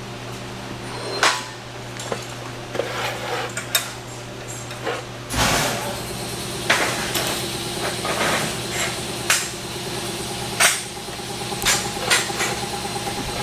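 Metal clanks and taps of steel exhaust tubing being handled and set in a fabrication fixture, over a steady low electrical hum. A steadier machine noise comes in about five seconds in.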